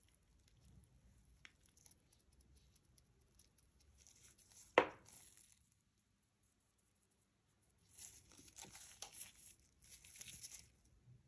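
Gloved hands handling an ice cream bar and a glitter jar: soft rustling, one sharp tap about halfway through, then crinkly, crackling rustles of the gloves and the glitter-coated bar near the end.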